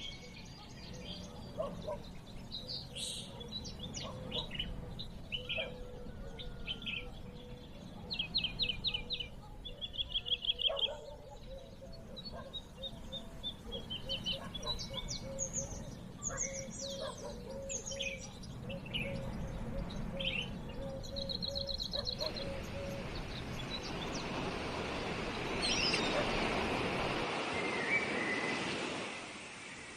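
Several birds chirping and calling in short high notes, with two fast trills about a third of the way in. In the last third a rushing noise swells up and fades.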